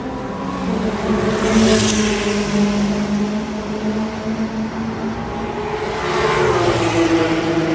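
Race cars at speed on a circuit, passing by twice: once about a second and a half in, and again about six seconds in, its engine note dropping in pitch as it goes past, over a steady engine drone.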